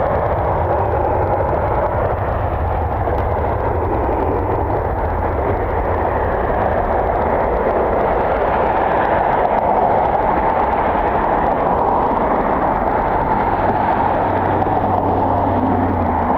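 Steady roar of airliner jet engines, with a low rumble underneath that cuts out near the end.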